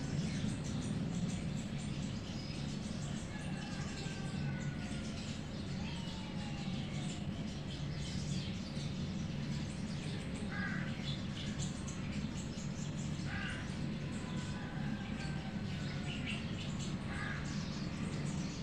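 Birds calling faintly in the background, a few short calls and thin gliding whistles, over a steady low hum.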